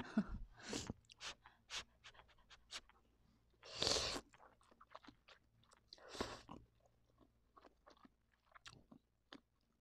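Indomie instant noodles being slurped and chewed: a longer slurp about four seconds in and another about six seconds in, with wet chewing and mouth clicks in between.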